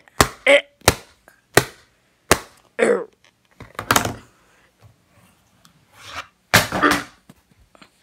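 A series of sharp knocks and thumps, about six hits in the first half and more scattered later, with a short falling pitched sound near the middle and a longer pitched sound near the end.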